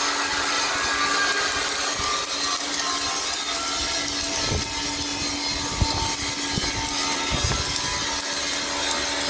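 Electric arc welding crackling and hissing steadily, with a steady low hum beneath and a few soft knocks partway through.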